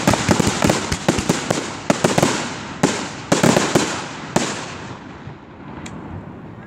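Aerial fireworks bursting in a rapid barrage, many sharp bangs over dense crackling. After about four and a half seconds it thins out, leaving faint crackle and one last crack.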